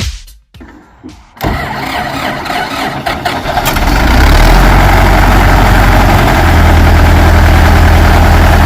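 Tractor engine starting about a second and a half in, then running steadily, growing louder and deeper from about four seconds in.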